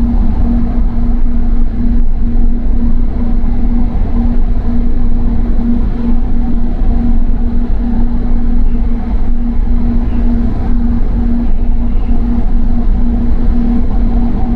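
Doha Metro train running, heard from inside the carriage: a steady low rumble with a constant hum.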